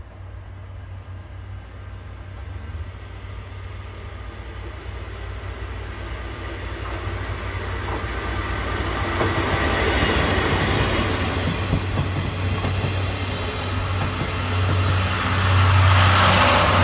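DE10 diesel-hydraulic locomotive running toward and past with its train of passenger coaches, with a steady low engine hum and the rumble of wheels on rail. It grows steadily louder as the train approaches and is loudest near the end, as the coaches run close by.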